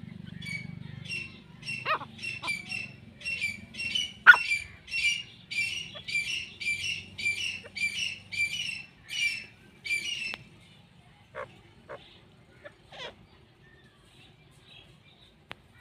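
Grey francolin calling: a long run of shrill repeated notes, about one and a half a second, that stops about ten seconds in. A few short sharp squeaks come in during and after the run, the loudest about four seconds in.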